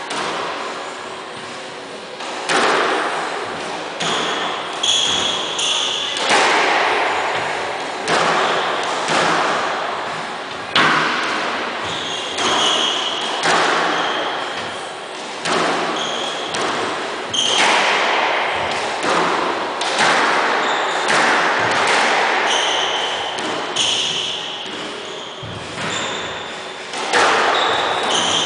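A squash rally: the ball cracks off rackets and the front wall about every second, each hit echoing around the court, with short high squeaks of court shoes on the wooden floor between shots.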